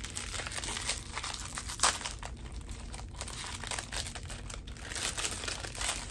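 Plastic wrapper of a Gansito snack cake crinkling and tearing as it is pulled open by hand, in irregular crackles with one sharper, louder crackle about two seconds in.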